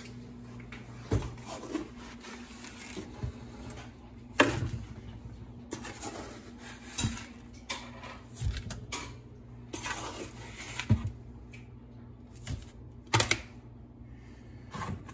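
Plastic measuring cup and plastic pitcher knocking and clattering every few seconds as granulated sugar is scooped and poured into the pitcher, with short rustles of pouring sugar. A steady low hum runs underneath.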